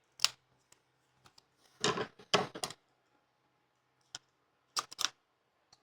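A few sharp clicks and short scraping rustles in small clusters, from hands handling oval dams and fitting them into a bowling ball's finger holes before plugging.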